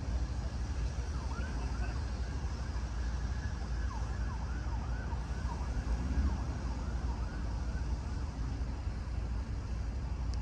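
A faint siren-like sound of quick, repeated rising and falling sweeps for several seconds, starting about a second and a half in and fading out around eight seconds, over a steady low rumble.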